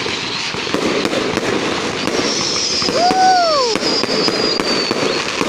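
Fireworks display: dense crackling and popping of bursting shells, with a high thin whistle running for a few seconds from about two seconds in, falling slightly in pitch.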